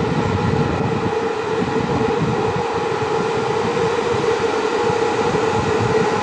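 060-EA electric locomotive hauling a passenger train, running with a steady electric hum over a rumble, its pitch holding level.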